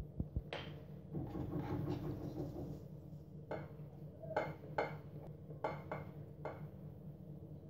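A silicone pastry brush stirring grape molasses and water on a ceramic plate: a few light clinks and scrapes against the plate, scattered through the stirring, over a faint steady low hum.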